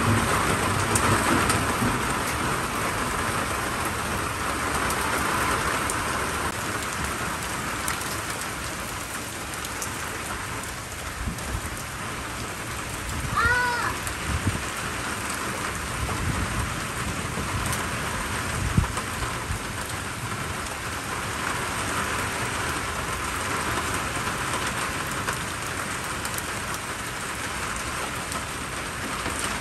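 Heavy rain falling steadily on a wooden deck, lawn and garden pots.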